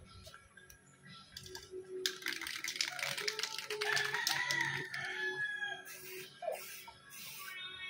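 A rooster crowing once, a rough call that starts about two seconds in and trails off with a slowly falling pitch, over background music.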